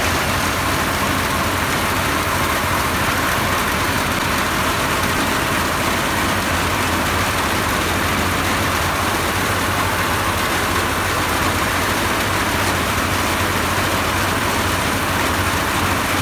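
Engine-driven rice threshing machine running steadily: a constant low engine drone with an even rushing noise over it.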